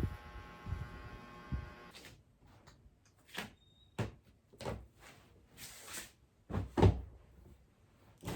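A steady electrical hum stops about two seconds in. A short high beep follows, then a series of household knocks and clatters, like a cupboard or door and objects being handled, the loudest near seven seconds.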